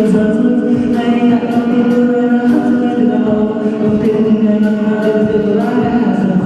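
A pop ballad being performed: music with a steady light beat and long held notes, with singing over it.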